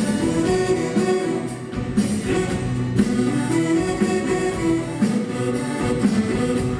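Cajun band playing live: fiddle, accordion, electric bass and acoustic guitar together, instrumental, with a steady beat.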